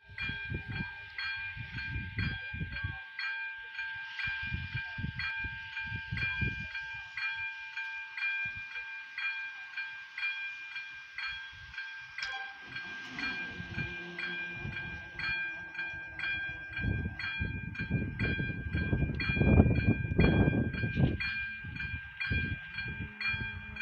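Level-crossing warning bell ringing with evenly repeated strikes, about two a second, signalling that a train is coming. Under it, irregular low rumbling surges swell loudest about two thirds of the way in.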